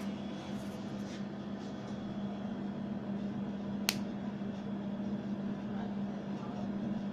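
Steady low mechanical hum of room machinery, with one sharp click about four seconds in.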